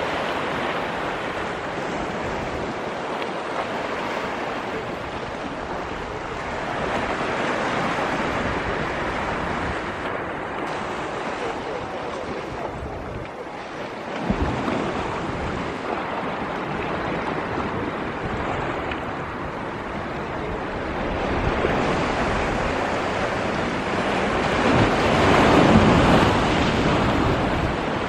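Sea waves washing in on a beach, a steady rushing that swells and fades slowly and is loudest near the end, with some wind buffeting the microphone.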